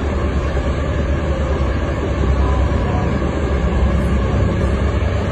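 Steady low rumble of outdoor ambient noise, dense and even, with no distinct events.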